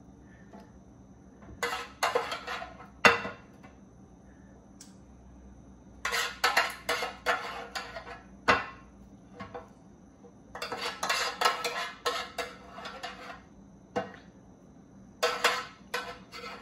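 Metal spoon scraping and clinking against a metal loaf pan while scooping sauce out of it, in four bursts of quick strokes with a few sharp single clinks between them.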